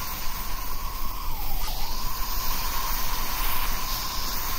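Steady hissing noise, with a thin tone running through it that dips briefly in pitch about a second and a half in.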